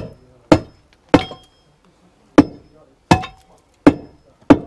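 A long steel bar being driven down onto concrete, chipping it away: seven sharp strikes, roughly two-thirds of a second apart with a short pause after the third. Some strikes leave a brief metallic ring.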